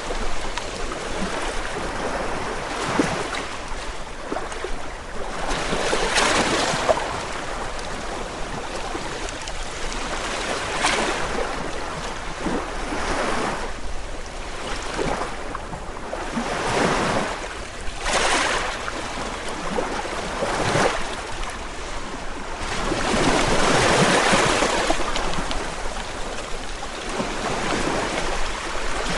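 Ocean surf: waves breaking and washing in, a steady wash that swells and falls back every few seconds, with a longer, louder surge about three-quarters of the way through.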